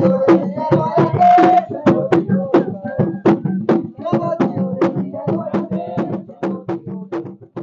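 Two atabaque hand drums played with bare hands in a steady Umbanda ritual rhythm, about four strokes a second, growing quieter toward the end.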